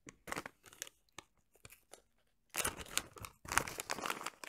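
Plastic jerky pouch being opened and handled: tearing and crinkling of the packaging, with sparse crackles at first and a denser run of crinkling in the second half.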